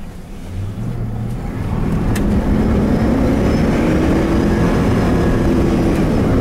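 A 2000 truck's 6.0-litre V8 accelerating hard under load, its note and loudness rising steadily from about a second in, with one sharp click a little after two seconds. It pulls freely now that a crank relearn has cured its refusal to rev past 3,000.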